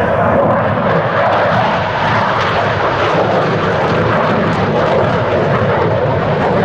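CF-18 Hornet fighter in flight, the loud, steady rushing noise of its twin General Electric F404 turbofan jet engines.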